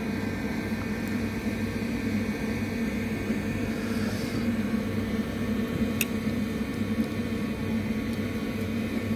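Steady low mechanical hum, with one faint click about six seconds in.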